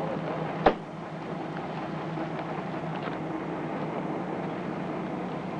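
A steady rumbling noise with one sharp knock under a second in.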